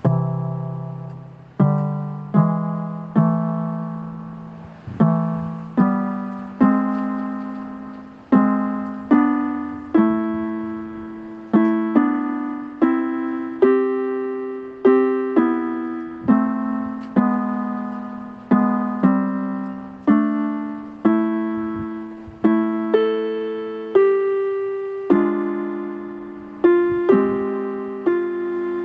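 Piano playing a slow melody, its notes struck one after another, about one to two a second, each left to ring and fade.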